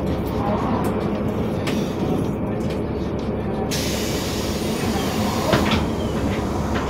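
NefAZ-5299 city bus heard from inside while driving: steady engine and road rumble, with a hiss setting in about halfway through.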